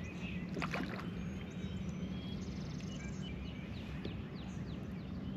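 A boat's steady low hum on open water, with short, high bird chirps scattered throughout and a brief knock about a second in.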